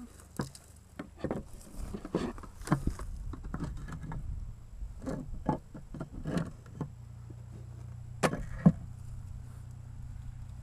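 Wooden beehive boards being slid, lifted and set down by hand, giving a run of sharp wooden knocks and clicks, with the two loudest a little after eight seconds in. A steady low hum runs underneath from about seven seconds in.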